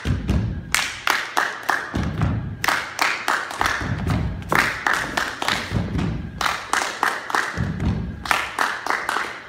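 A group of performers clapping and stomping in rhythm on a stage floor: repeated phrases of five or six quick sharp claps, each followed by heavier low stomps, the pattern coming round about every two seconds.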